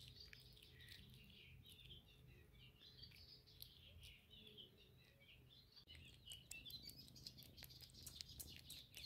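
Near silence with faint birdsong: small birds chirping. Light clicks come in during the last few seconds.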